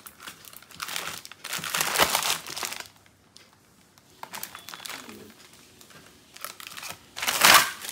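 Gift packing material crinkling and rustling as a wrapped present is pulled open by hand. There are two louder bursts, one about two seconds in and a shorter one near the end, with softer rustling between.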